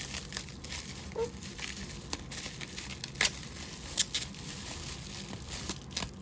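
Paper or plastic packaging crinkling and rustling as an item is unwrapped by hand, with a few sharper crackles.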